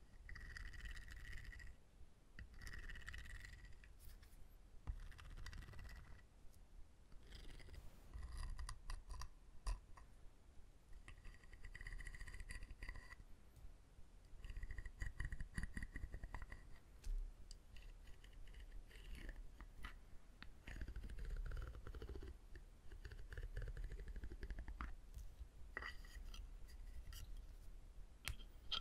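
Wooden objects being scraped and tapped for ASMR: strokes of dry scraping about a second long, with many small clicks and taps in between.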